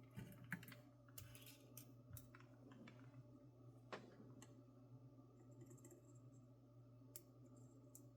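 Near silence over a faint steady hum, broken by a scatter of small clicks and taps from handling small parts and tools at a workbench, most of them in the first couple of seconds.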